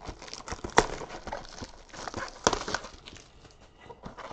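Cardboard trading-card blaster box being handled and opened: rustling and scraping cardboard with two sharp snaps, one about a second in and another about two and a half seconds in.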